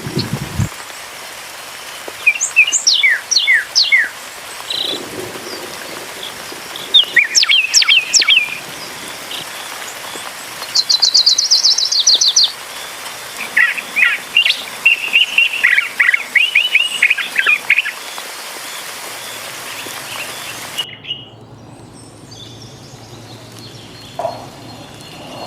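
Songbirds chirping and singing in short phrases of quick gliding notes, with a fast high trill about eleven seconds in, over a steady background hiss. About twenty-one seconds in, the background changes abruptly and only a few faint calls follow.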